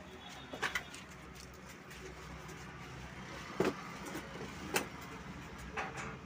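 A few sharp knocks and clatters, about four spread across a few seconds, from sewing machine parts being handled, over a steady low background rumble.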